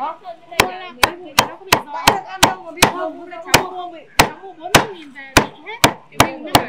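Meat cleaver chopping roast pork on a round wooden chopping block: a run of sharp chops at about two a second, unevenly spaced, with a brief pause partway through.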